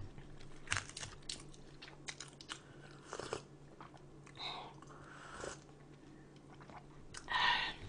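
Close-up eating sounds: chewing a mouthful of food with many small crisp crunches and wet clicks, and a louder crunch near the end.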